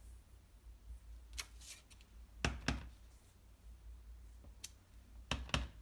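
Clear acrylic stamp block knocking lightly as it is set down and pressed onto an envelope, stamping small tulip heads in a row: two pairs of short knocks, with a brief paper rustle before the first.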